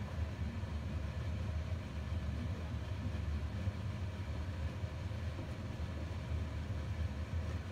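Steady low rumble with no distinct events, a continuous background drone in a kitchen.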